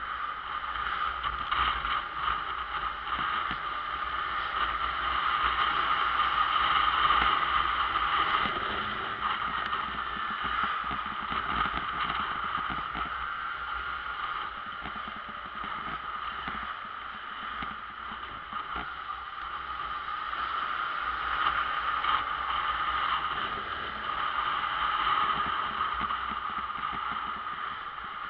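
Motorcycle on the move: engine running steadily under a rush of wind noise on the camera's microphone, swelling and easing gently.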